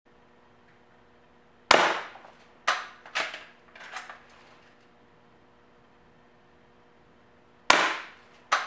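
Two shots from an Umarex DX17 spring-piston air pistol about six seconds apart, one near the start and one near the end. Each is a sharp crack followed by a few lighter knocks.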